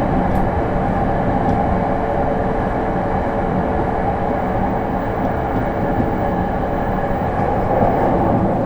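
Interior running noise of a JR East E231-series (1000 subseries) suburban electric train travelling at steady speed: a constant rumble of wheels on rail with a steady hum that holds one pitch throughout.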